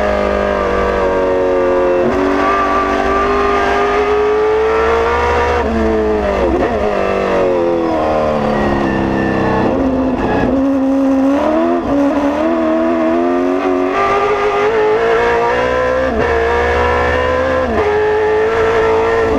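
Holden Torana SLR5000 race car's V8 engine under hard acceleration, heard from inside the cabin. The engine note climbs steadily, then falls sharply and climbs again several times: about six seconds in, around ten seconds, and twice more near the end, as the car shifts gear and slows for corners.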